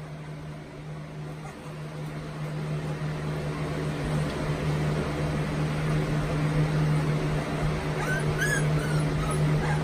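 A retriever puppy whimpering, a few short high squeaks about eight seconds in, over a steady low hum.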